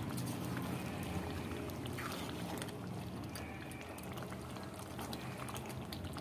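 Thick chicken curry gravy bubbling in a pan on a low flame, nearly done, with a ladle stirring through it; small pops and clicks over a steady low hum.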